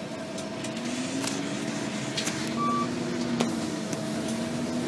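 Transit bus engine and drivetrain heard from inside the bus while it drives, with a low whine that rises in pitch and then holds steady. A brief high beep about halfway through and a sharp click soon after.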